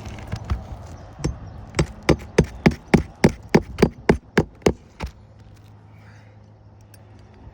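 Hammer driving roofing nails into an asphalt shingle: about a dozen quick, even strikes, roughly three a second, stopping about five seconds in.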